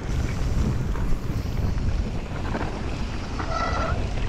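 Wind buffeting an action camera's microphone on a fast mountain-bike descent, over the steady rumble of the bike and its tires on a dry, loose dirt trail.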